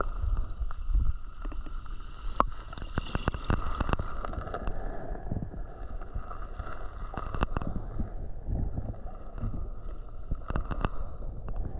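Underwater sound of shallow seawater: a muffled rushing with a low rumble, broken by scattered sharp clicks.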